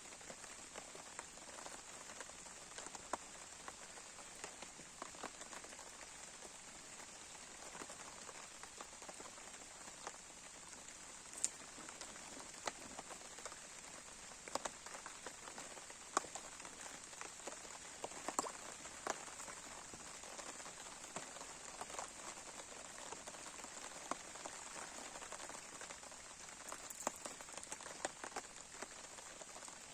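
Campfire crackling: a steady hiss of burning wood with irregular sharp pops and snaps.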